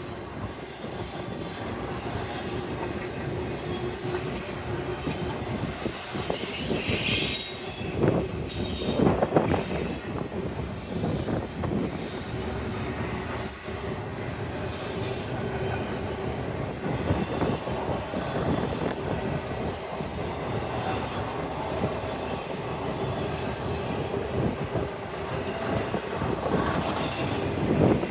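Norfolk Southern intermodal freight train rolling slowly past: steel wheels clatter and click over the rail joints, and the wheels squeal now and then, with the loudest squeals and clanks about seven to ten seconds in.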